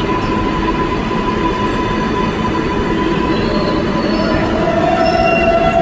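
New York subway 7 train of R188 cars running past along the station platform, with steady wheel-and-rail rumble and a thin steady whine. From about three and a half seconds in, a motor whine rises in pitch as the train picks up speed leaving the station.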